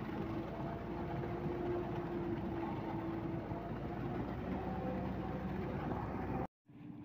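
Concrete mixer truck running steadily, its engine and turning drum heard together as wet concrete pours down the discharge chute; the sound cuts off suddenly near the end.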